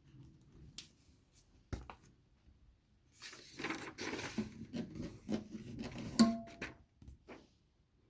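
Hermes 2000 manual typewriter being worked by hand: a few separate mechanical clicks, then about four seconds of busy clattering with a brief ringing tone near its end.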